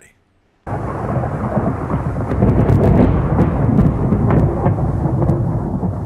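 Thunderstorm sound: thunder rumbling with rain, starting abruptly under a second in and running on, with sharp crackles through it.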